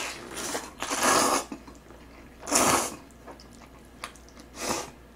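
A person slurping mouthfuls of instant jjajang noodles in black bean sauce: a long slurp in the first second and a half, a short loud slurp near the middle and a softer one near the end.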